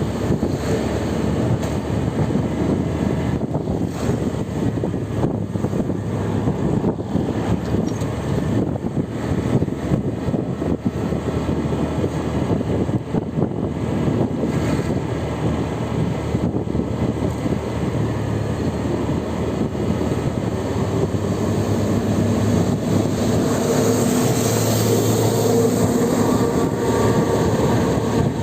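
Steady vehicle noise on a road: engine and tyre rumble, with a low engine hum building a little louder in the last few seconds.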